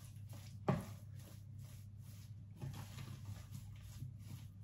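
Wooden spatula stirring thick fish-and-tapioca paste in a ceramic dish: soft, sticky scraping strokes, with one sharper knock against the dish a little under a second in, over a faint low hum.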